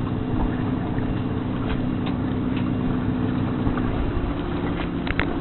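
Engine idling steadily, a low droning hum that shifts slightly about four seconds in, with a few faint clicks near the end.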